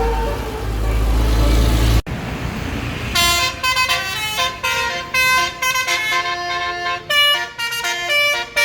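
Basuri 'telolet' multi-note bus horn playing a quick melody of short notes, starting about three seconds in. Before it, a bus engine's low rumble cuts off suddenly about two seconds in.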